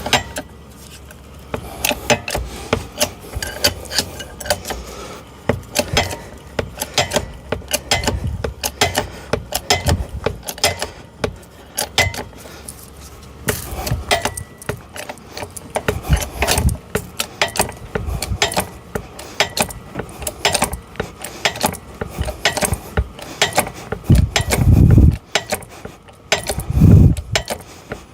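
Hand-pumped bottle jack on a hydraulic car ramp being worked with its handle, giving a steady run of metal clicks and clanks from the handle in its socket as the ramp lifts under a loaded truck. A few heavier thumps come near the end.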